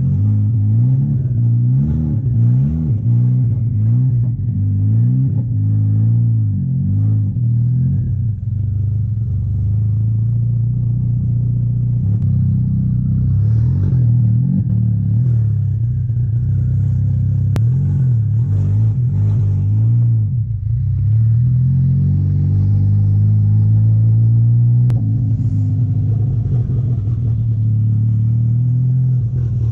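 Built MK6 Golf R's turbocharged 2.0-litre four-cylinder running under way, its engine note rising and falling with throttle. It has a freshly replaced cam adjuster, cam solenoid, timing chain and tensioner.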